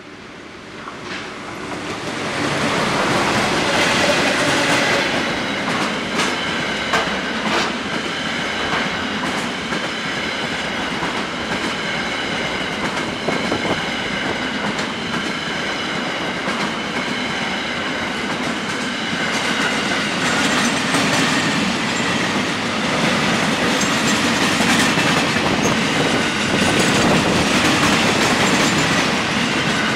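Empty flat freight wagons rolling past on the rails, their wheels clattering over the rail joints with a steady high ringing squeal. The sound swells over the first few seconds as the wagons come by, then stays loud.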